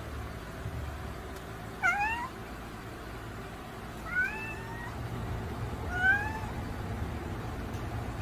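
Domestic cat meowing three times, short calls that rise in pitch, about two seconds apart, over a low steady hum.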